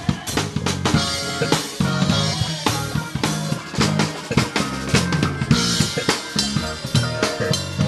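Live band music with a drum kit played hard, kicking in loudly right at the start: bass drum, snare and cymbal strokes in a steady dense rhythm over sustained bass and chord tones.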